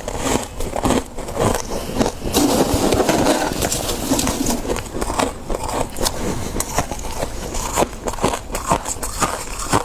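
Close-miked crunching and chewing of soft freezer frost: a continuous run of irregular crackles and crunches, thickest about two to four seconds in.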